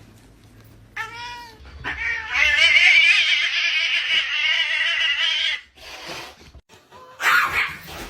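A domestic cat yowling: a short meow about a second in, then one long, loud, drawn-out caterwaul with a wavering pitch lasting about three and a half seconds. A brief noisy burst follows near the end.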